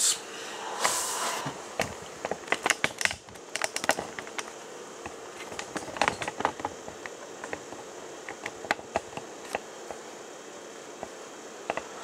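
Irregular light clicks and ticks from hands and equipment being handled, with a brief hiss about a second in.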